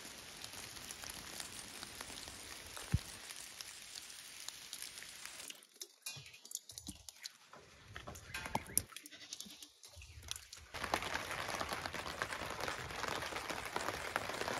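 Goats bleating faintly over a steady hiss of rain.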